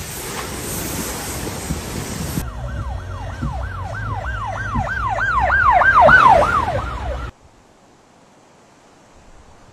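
Wind and rain rushing, then about two and a half seconds in a police siren in fast yelp mode, quick falling sweeps about three a second, growing louder and cutting off suddenly about seven seconds in.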